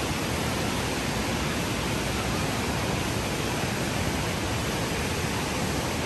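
Steady, even rush of whitewater from the Tallulah River falling through the gorge below the suspension bridge.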